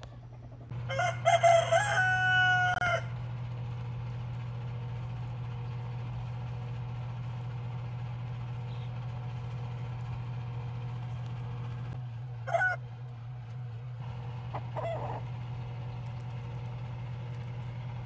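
A rooster crows once, a long held call of about two seconds starting about a second in. A steady low hum runs underneath. Two short, fainter chicken calls follow later.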